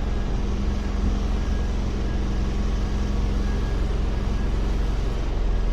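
Bus engine idling, a steady low drone heard from inside the bus.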